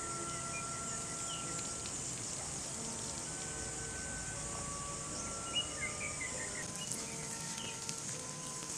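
Steady high-pitched chirring of insects, with a few short bird chirps in the middle. Soft background music of long held notes sits under it.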